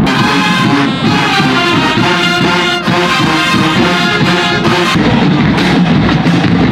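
Marching band playing a loud tune: brass horns sounding full chords over drums. The horns break off briefly near three seconds in and drop away about five seconds in, leaving mainly the low drums and bass.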